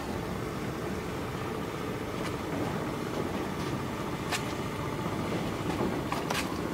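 Steady low engine rumble from passing boats, mixed with water wash, with a few faint sharp ticks about four and six seconds in.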